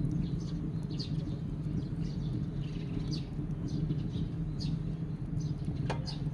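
Steady low hum with birds chirping at intervals. Near the end, a single sharp clank as the steel lid of a gas-cylinder wood stove is lowered shut.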